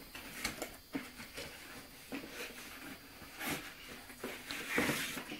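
Cardboard box being handled and opened: irregular scrapes, taps and rustles of cardboard, with a louder rustle near the end.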